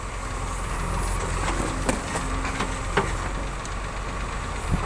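JCB 3DX backhoe loader's diesel engine running steadily under work, with a few sharp knocks about two, three and nearly five seconds in.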